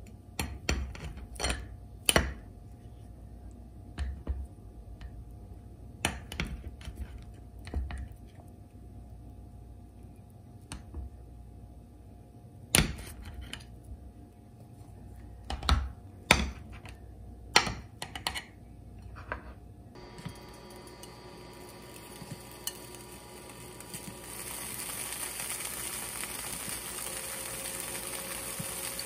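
Kitchen knife clicking and knocking against a glass plate and the metal Spam can while a block of Spam is sliced, a dozen or so sharp clinks. From about 20 s a steady hiss from a frying pan, growing louder a few seconds later, as the Spam slices start to sizzle.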